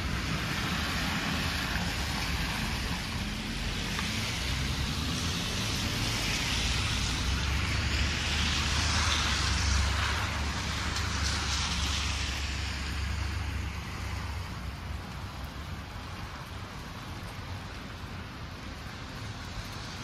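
Street traffic on wet, slushy roads: a steady hiss of tyres and a low engine rumble, swelling as a vehicle passes near the middle, then easing off.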